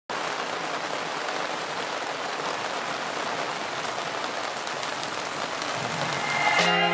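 Steady rain falling on a wet wooden boardwalk and paving, with scattered drop ticks in the rain's steady hiss. Music comes in just before the end.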